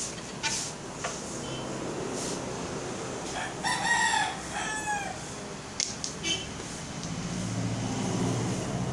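A rooster crowing once about four seconds in, a two-part cock-a-doodle-doo. Sharp clicks of small billiard balls striking come just after it, and a low hum rises near the end.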